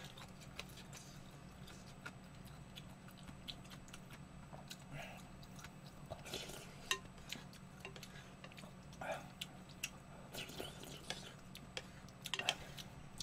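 Quiet eating sounds while eating ramyeon: a wooden spoon and chopsticks clicking lightly against the bowl, with chewing and a few short louder noises around the middle and near the end, over a faint steady low hum.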